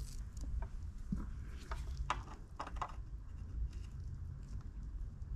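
Small hand screwdriver turning a stainless steel mounting screw into a scooter's controller board: scattered light clicks and scrapes of metal, heard over a low rumble.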